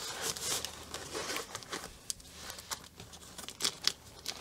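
Clear plastic packaging crinkling as diamond-painting pens and tools are handled and packed into it, with a few sharp clicks near the end.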